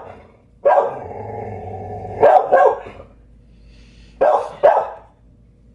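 A dog barking excitedly indoors, about five barks in short groups, the first one drawn out into a long held cry for over a second before two quick barks and then two more near the end.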